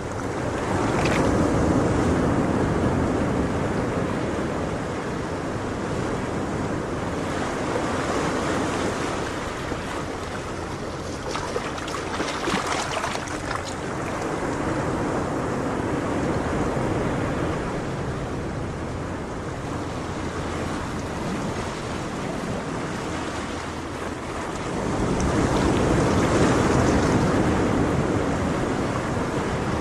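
Ocean waves washing on a shore, rising and falling in slow swells several seconds apart.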